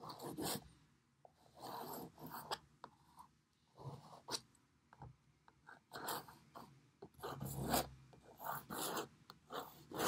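Plastic painter's knife scraping and spreading thick white gesso across a canvas in a series of short, irregular strokes.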